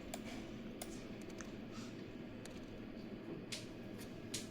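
Faint steady background hum with a few light, short clicks scattered through.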